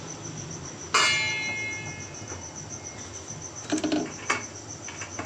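A metal kitchen utensil or plate clinks once with a sharp strike about a second in and rings briefly, then a few soft knocks come near the end, as momos are set out on a plate for steaming. Crickets chirp steadily in the background throughout.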